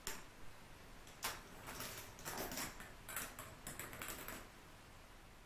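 Plastic balls clicking and rattling through a K'nex ball machine's plastic track and parts. There is a click at the start, another about a second later, then about three seconds of rapid clicks and knocks that stop a second before the end.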